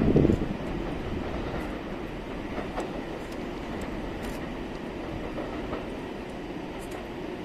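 A train, the EF81 electric locomotive hauling a KiHa E130 railcar, rolling over the tracks with wheels clacking over rail joints and a steady rumble. There is a loud thump right at the start, and the rumble eases slightly toward the end.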